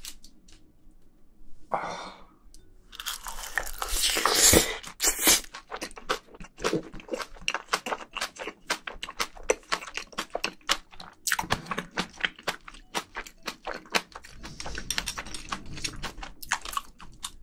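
A person chewing a mouthful of spicy braised seafood with bean sprouts and rice, picked up by close microphones: wet smacking and crunching with many quick clicks. There is a louder, denser burst of crunching about three to five seconds in.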